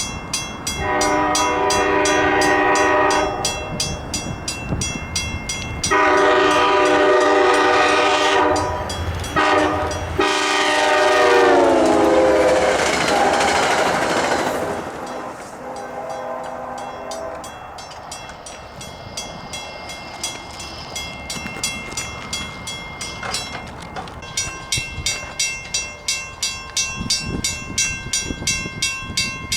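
Diesel locomotive horn sounding the grade-crossing signal, long, long, short, long, the last blast dropping in pitch as the train passes. The rush of the passing train follows, then a fainter blast. A rapid, regular ticking runs beneath at the start and again near the end.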